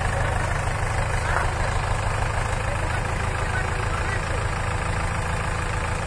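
JCB 3DX backhoe loader's diesel engine idling steadily.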